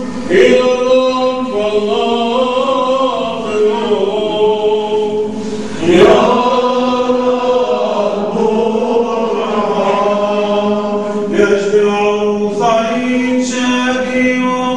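Male church cantors singing a liturgical chant together, several voices moving through a slow melody over a steady held drone note.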